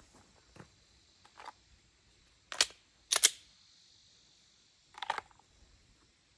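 A few sharp mechanical clacks: one, then a quick pair about half a second later, then another cluster a couple of seconds after that, typical of handling a pistol or gear.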